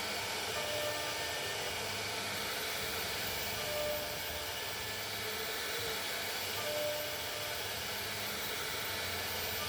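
CNC router running: a steady, even hiss with a few brief faint tones.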